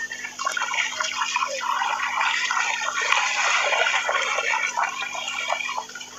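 Dogs splashing through shallow seawater: a busy, irregular run of small splashes and drips as they run and paw in the water.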